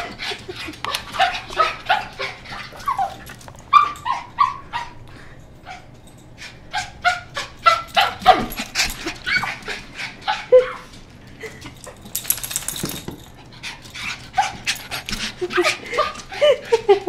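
Small dog whining and yipping in excited greeting, many short high calls that bend up and down in pitch, mixed with sharp clicks. A brief hiss about twelve seconds in.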